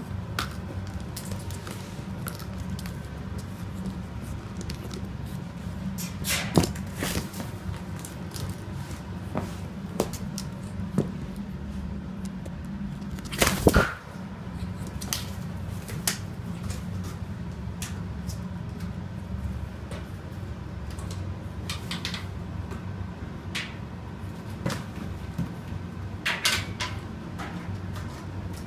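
Steady low room hum with scattered light knocks and clicks from handling and play, one louder clatter about halfway through.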